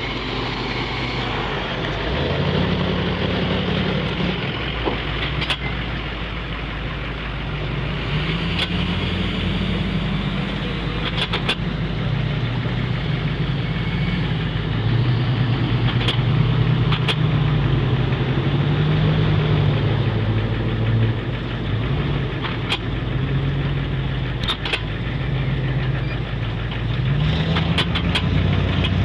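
Engines of lifted Chevrolet 4x4 trucks running as they drive slowly past, the engine pitch rising and falling again and again. A few sharp clicks are heard along the way.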